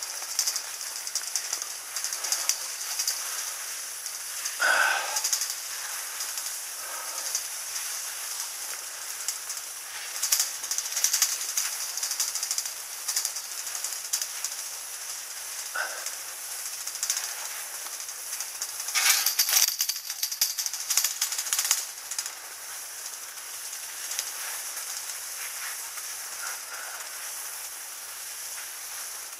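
Skis sliding up a drag-lift track on spring snow: a steady hiss of the ski bases scraping the packed snow. A few brief louder scrapes come around 5 s, 16 s and 19–20 s in.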